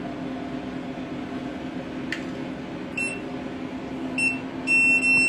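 Electronic beeps from a laser treatment machine: a short beep about three seconds in, another just after four seconds, then a longer, louder beep near the end. A steady low hum runs underneath, and there is a faint click about two seconds in.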